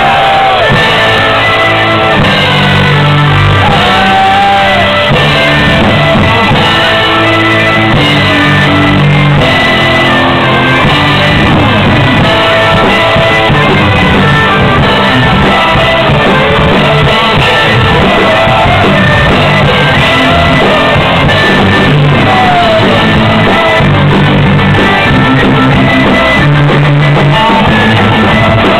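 A folk metal band playing live and loud: electric guitars and bagpipes, with shouted vocals.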